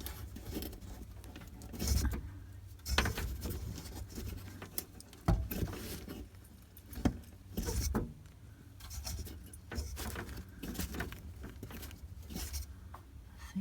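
Handling noises from unwrapping electrical tape off a wiring connection and working the plug: irregular rustling with scattered clicks and taps, over a steady low rumble.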